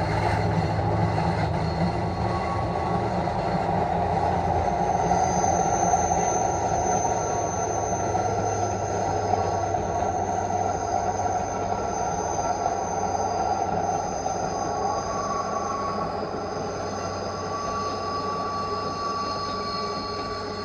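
ÖBB class 2016 'Hercules' diesel-electric locomotive and its Cityshuttle coaches running through a curve. A low diesel drone weakens after about five seconds, and from then on the wheel flanges squeal in several steady high tones that come and go while the train slowly draws away.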